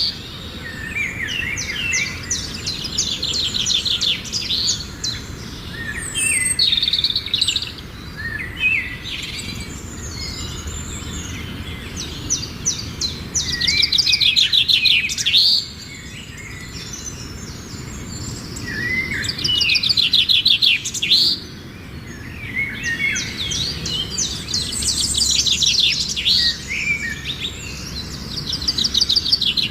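Songbird singing: repeated phrases of rapid high trills and chirps, each a few seconds long, with short pauses between them, over a steady low background rumble.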